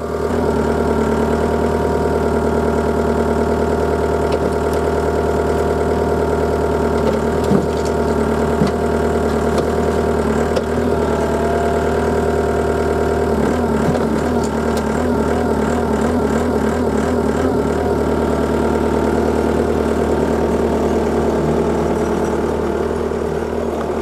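Takeuchi skid steer's diesel engine running steadily as the loader lifts a grapple bucket out of a pickup bed. The note wavers a little about midway.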